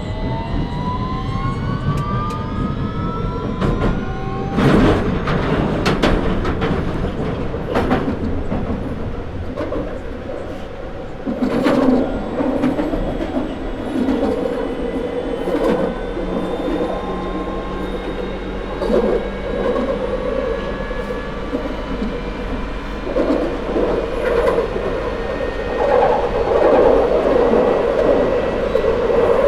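London Underground 2009 stock train heard from onboard, running in tunnel. In the first few seconds the traction motors whine in several tones that rise together as it picks up speed. After that come a run of sharp clicks over the rail joints and a steady rumble and hiss of wheel on rail.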